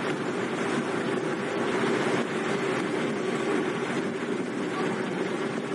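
Steady running drone of a car ferry under way, heard from its open deck: engine hum mixed with wind on the microphone and the rush of the sea.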